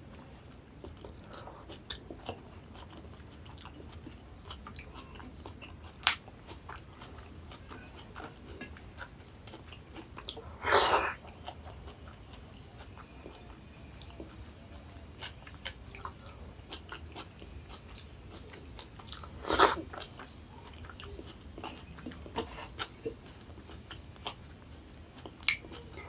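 Close-up chewing and mouth sounds of a person eating rice with taro curry, with many small clicks and smacks. Two louder short noisy bursts come about a third of the way in and again about three quarters of the way in.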